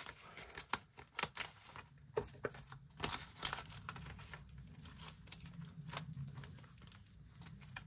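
Faint paper rustling and crinkling with scattered small clicks and taps, most of them in the first half: banknotes and budget envelopes being handled.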